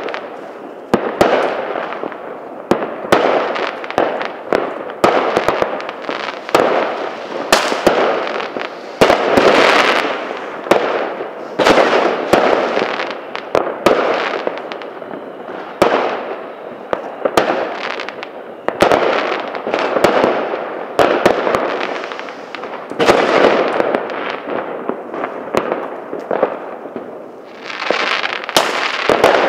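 Fireworks and firecrackers going off in a continuous barrage: sharp bangs and cracks come several a second with no letup.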